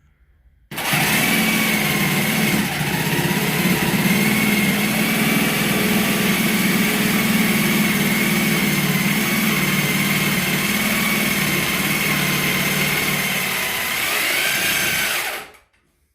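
An electric power tool runs steadily with a constant whine for about fifteen seconds, switching on abruptly and cutting off near the end, its pitch lifting briefly just before it stops.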